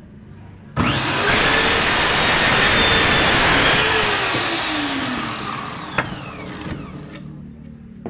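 Miter saw switched on about a second in and running loud while it cuts through melamine board, then dying away as the blade spins down, with a sharp click near the end.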